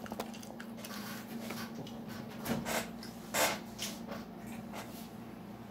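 A few short knocks and rustles, the loudest about three and a half seconds in, as the door of a small fridge is handled and pulled open, over a steady low hum.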